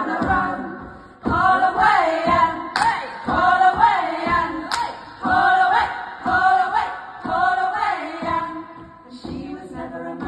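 A group of women singing together in phrases of a few seconds, with short breaths between them.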